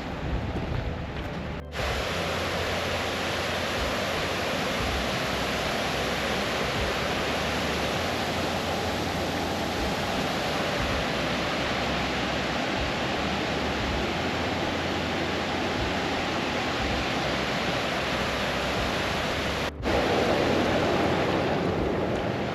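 Steady rush of flowing stream water, broken by two abrupt cuts, about two seconds in and near the end.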